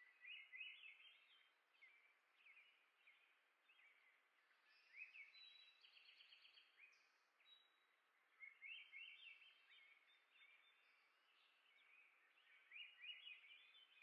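Faint songbird song over a steady background hiss: four short bursts of quick, warbled notes, a few seconds apart.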